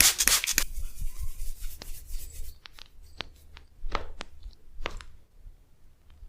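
Hand massage sounds: brisk rubbing and slapping on skin in the first second, then a scattering of sharp clicks over the next few seconds.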